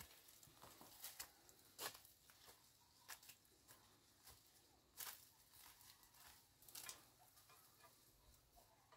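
Faint footsteps and rustling on a dry dirt trail through grass: a few scattered crackles over near silence.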